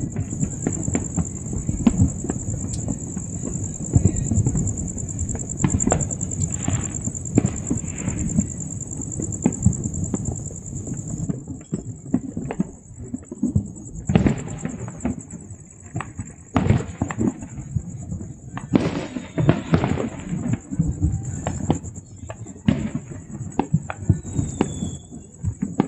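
Many fireworks and firecrackers going off across the city, a near-continuous barrage of bangs and pops at varying distances, with a steady high-pitched whine underneath.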